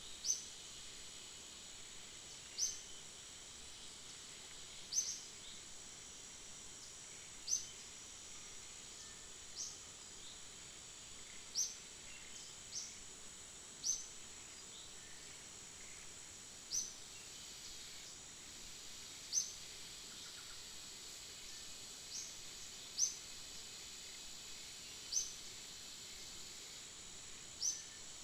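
Steady high insect drone, with a short high chirp repeating about every two to three seconds.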